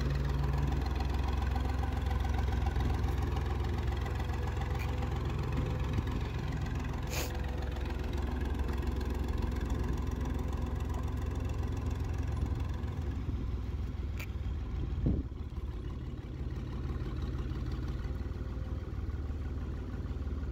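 Engine of a loader tractor running steadily as it lifts and carries a full produce bin on its forks, a low rumble with a couple of sharp clicks and a brief drop in pitch a little past the middle.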